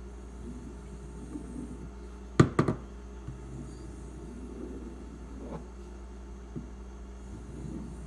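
A quick cluster of three sharp knocks about two and a half seconds in, with a few fainter taps, over a steady low hum: sharpening gear being handled on the bench.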